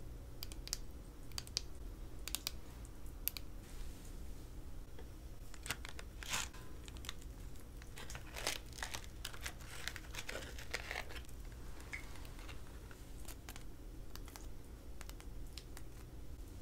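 Candy packaging being handled and opened close to the microphone: a few sharp clicks and taps at first, then several seconds of crinkling and tearing of wrapping in the middle, then a few lighter clicks.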